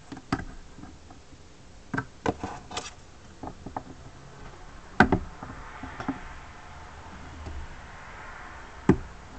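Scattered clicks and knocks of small objects being handled, with a sharper knock about five seconds in.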